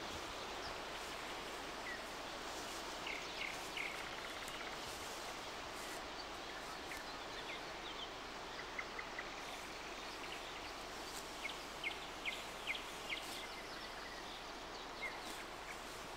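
Steady outdoor background hiss with scattered short, high bird chirps, several in a cluster about two-thirds of the way through.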